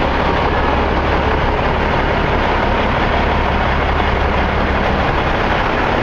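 A heavy vehicle engine running steadily: an even, unbroken rumble with hiss over it.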